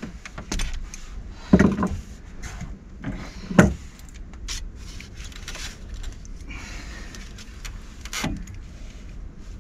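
Metal spanner clinking and knocking on the brass fittings of an unvented hot water cylinder as a fitting is worked undone: a scatter of small metallic clicks, with two louder knocks about one and a half and three and a half seconds in.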